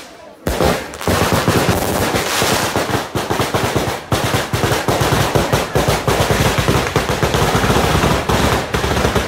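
Ground-level firecracker barrage going off: a single bang at the start, then from about a second in a dense, unbroken rattle of rapid reports like machine-gun fire.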